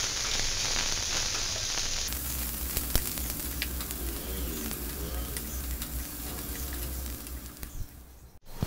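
Chopped onions, green chillies and curry leaves sizzling in hot oil in a kadhai as they are sautéed, stirred with a wooden spatula that taps and scrapes the pan now and then. The sizzle cuts off abruptly just before the end.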